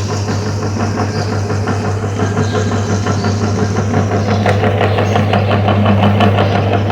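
Electric meat grinder running with a steady motor hum while its auger crushes frozen ice pops. A dense rapid crackle of crunching grows thicker about halfway through.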